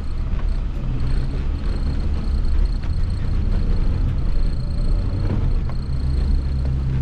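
Suzuki Vitara engine and drivetrain running steadily while driving over sand, heard from inside the cabin as an even low rumble, with a faint high steady whine over it.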